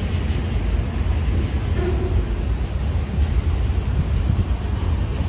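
A train rolling past, a steady low rumble with no break.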